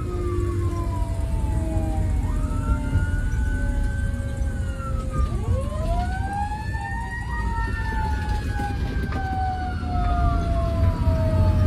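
Fire engine siren wailing, heard from inside the moving cab over the steady rumble of the truck's engine and road noise. The pitch swoops up quickly about two seconds in and again about five seconds in, each time falling away slowly.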